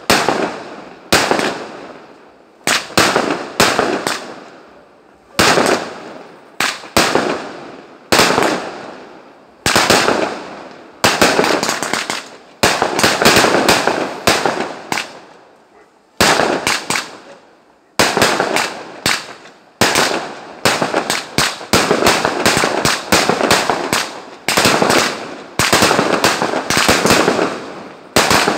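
Aerial fireworks shells bursting one after another, a sharp bang about every second or so, each trailing off afterwards. From about two-thirds of the way in, the bursts come faster, in dense volleys.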